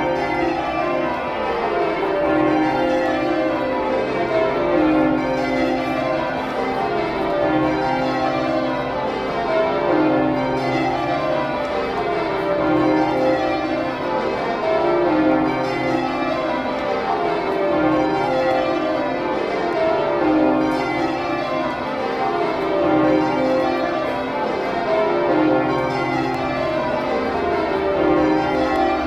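The church bells of St Mary-le-Bow (Bow Bells) being change-rung by ringers pulling the ropes. Each row of bells is struck in turn from highest to lowest note, one row following another about every two and a half seconds in a steady, unbroken peal.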